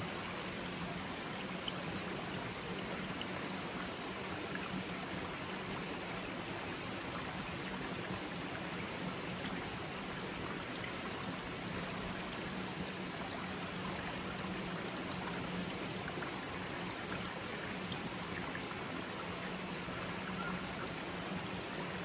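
Mountain valley stream running over rocks: a steady rush of water.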